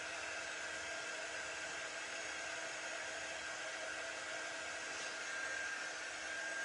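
Hand-held electric dryer blowing steadily to dry fresh paint, a constant rush of air with a faint steady whine.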